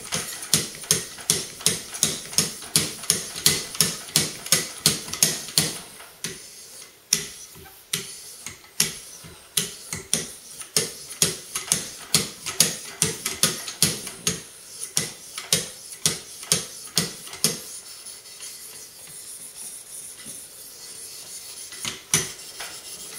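Diamond sharpening paddles of a Wicked Edge guided sharpener stroked along a Zero Tolerance knife blade: quick, even scraping strokes, about two or three a second, refining the edge and taking out the scratches left by the coarser paddles. The strokes stop about three-quarters of the way through, and a single click follows near the end.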